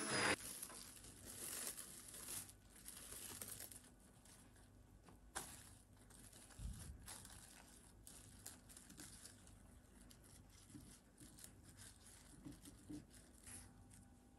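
Plastic cling film crinkling and crackling as it is handled and pressed by hand onto the surface of chocolate ganache in a metal bowl, in faint, irregular rustles. Right at the start, a Braun hand blender's motor cuts off.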